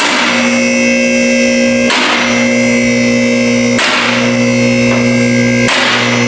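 Background music: sustained synth chords with a crash-like hit about every two seconds.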